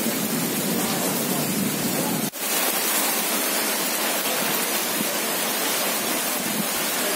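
Heavy rain pouring onto wet paved ground and standing water, a steady even rush, with a momentary dropout about two seconds in.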